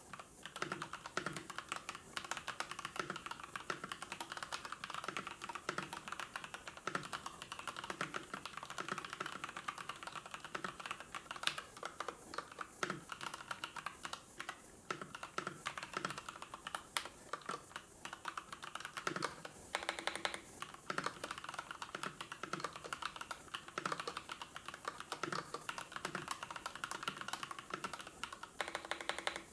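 Typing on a computer keyboard: a rapid, continuous run of keystroke clicks with a few brief pauses.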